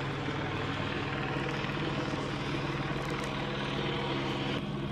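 Helicopter circling overhead: a steady rotor drone with a low hum, and its higher hiss drops away near the end.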